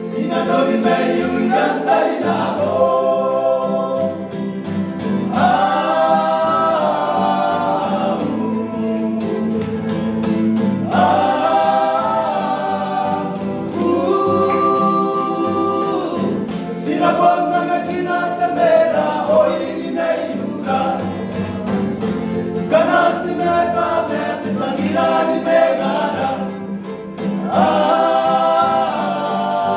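A men's group singing a church song together in harmony, accompanied by a strummed acoustic guitar, in sustained phrases with short breaks between lines.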